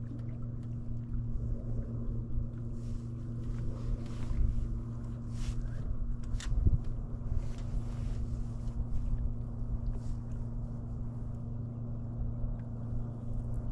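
Boat motor running steadily at trolling speed, a low even hum, with brief irregular noises scattered through the middle seconds.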